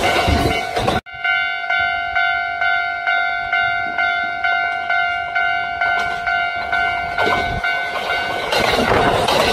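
Kintetsu electric train running past, cut off abruptly about a second in. A railway level-crossing alarm bell then rings steadily at about two strokes a second, and a train's running noise rises again near the end.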